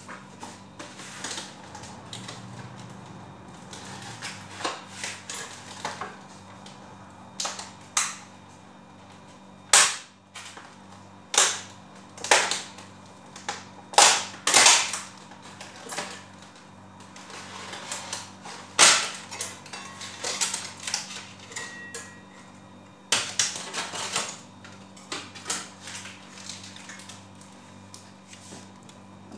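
Irregular sharp knocks and clicks, a spoon striking the rim and sides of a metal cooking pot, over a faint low steady hum.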